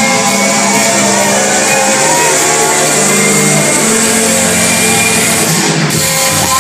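Live amplified band music playing loudly and steadily, heard from within the audience in a crowded hall.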